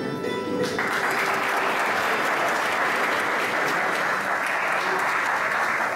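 Audience applauding, breaking out suddenly about a second in and holding steady, over the tail of instrumental music.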